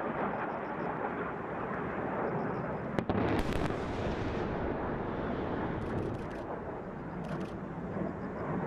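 A distant high-explosive blast on a hillside, its report arriving about three seconds in as a sharp crack followed by a crackling wash of noise that fades over about a second and a half, over a steady background of noise.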